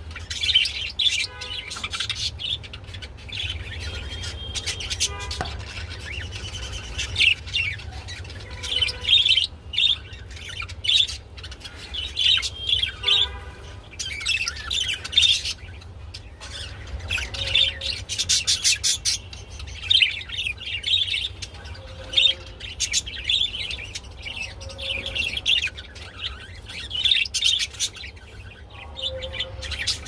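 Budgerigars chirping and chattering almost without pause, with a short run of harsher, lower calls a little before halfway.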